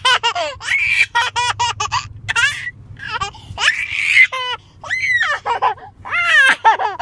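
A young child laughing in rapid, high-pitched bursts close to the microphone, over the steady low rumble of a car's cabin.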